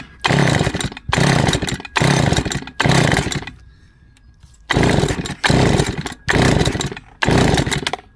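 Stihl FS160 two-stroke brushcutter being pull-started: eight hard tugs on the recoil starter in two sets of four, with a pause between the sets, the engine turning over on each pull but never catching. The owner thinks the cause is probably stale fuel in the carburettor.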